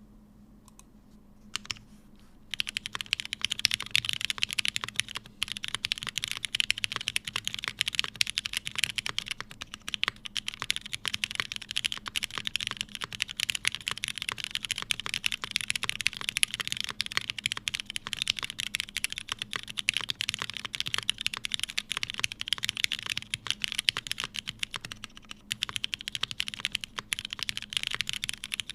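Fast continuous typing on a mechanical keyboard with lubed Hyperglide linear switches in an aluminium plate and GMK keycaps, a dense stream of clacking keystrokes that starts about two and a half seconds in.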